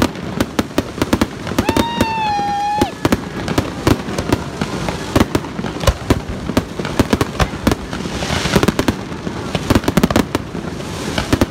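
Fireworks display: a rapid, irregular run of bangs from bursting aerial shells, with a stretch of high hiss about eight seconds in.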